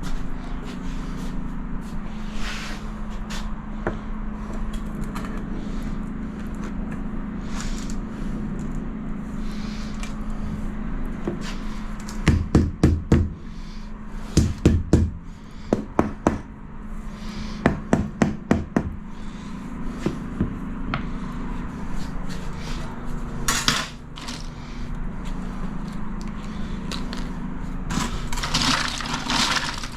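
Tiling work: several short runs of sharp knocks as tiles are tapped into place, with bursts of scraping, over a steady low hum.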